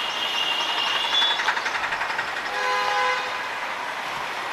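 Busy street traffic noise, with a vehicle horn sounding briefly about two and a half seconds in and a higher-pitched tone fading out in the first second.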